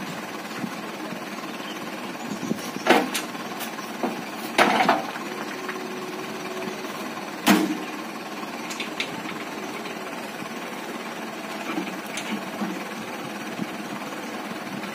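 Small diesel dump truck idling with a steady clatter, broken by three loud clanks about three, five and seven and a half seconds in as its loaded tailgate is worked.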